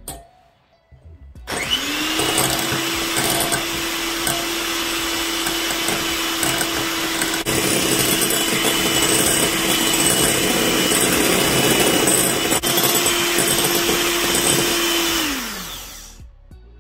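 Electric hand mixer whisking eggs in a glass bowl: the motor starts up about a second and a half in, runs at a steady pitch, and winds down with a falling tone near the end.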